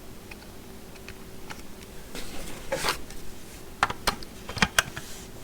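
Plastic handling rustle, then several sharp clicks and knocks near the end as a DeWalt 20V battery pack is slid onto the impact wrench and latched in.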